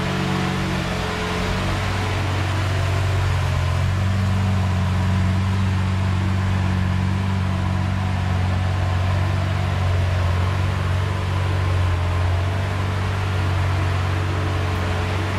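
2012 Lamborghini Aventador's 6.5-litre V12 idling steadily, a low even hum with no revs.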